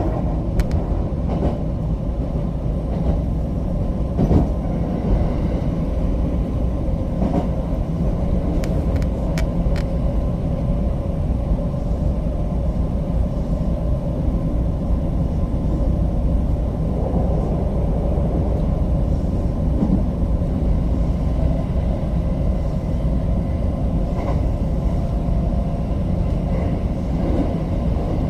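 JR West 225 series electric train running, heard from inside the car: a steady rumble of wheels on the rails, with a few sharp clicks in the first ten seconds.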